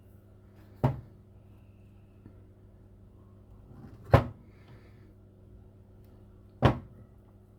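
Three sharp knocks or clicks, about a second in, near the middle and near the end, over a faint steady electrical hum.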